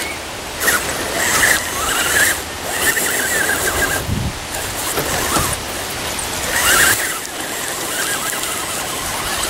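Electric motors and gears of RC rock crawlers whining as they climb, the pitch rising and falling in several spells with the throttle, over wind buffeting the microphone.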